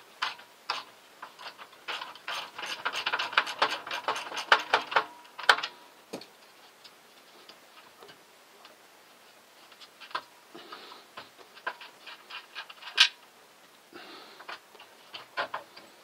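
Rapid ratchet-like clicking of a hand tool working the nut on a sticking drum roller's shaft on a GE Profile dryer's front bulkhead, followed by scattered metallic clicks and taps as the roller comes loose. The dense clicking falls in the first few seconds, and there is one sharp click about 13 seconds in.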